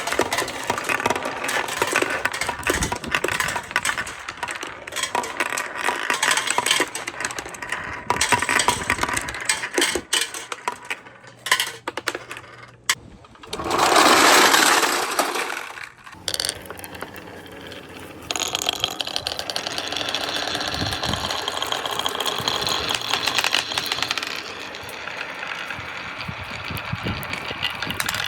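Balls rolling and clattering down a marble run, with many quick clicks as they knock against the track and each other. About halfway through comes a loud rushing burst lasting about two seconds, then a steadier rolling sound with fine ticking.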